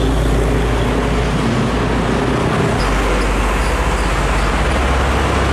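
Heavy trucks' diesel engines running steadily in passing road traffic, with motorcycles among them. The low engine drone changes abruptly about three seconds in.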